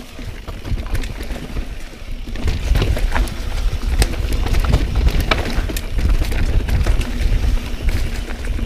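Pivot Firebird mountain bike descending a rough downhill trail: tyres rumbling over dirt, rocks and roots, with many sharp rattling clicks from the chain and frame, and wind rumbling on the microphone.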